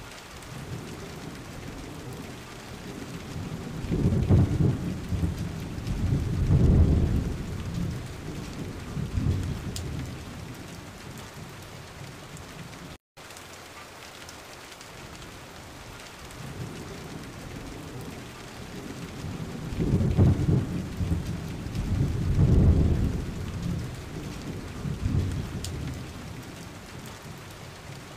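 Rain and thunder: a steady hiss of rain with two low rolls of thunder swelling and fading about three seconds apart. The sound cuts out for a moment about halfway, then the same two rolls come again.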